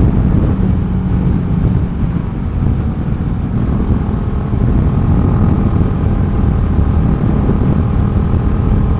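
Honda Grom's 125 cc single-cylinder engine running while cruising along a road, heard from on the bike, with a steady note that holds through the second half.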